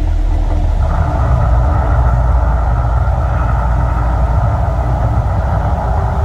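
The Mirage volcano show's eruption effects: a loud, deep, steady rumble, joined about a second in by a rushing hiss.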